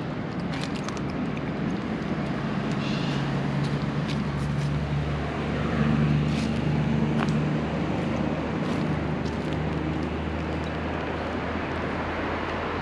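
An engine droning, swelling to its loudest around the middle and then easing, over a steady outdoor noise haze with a few light clicks.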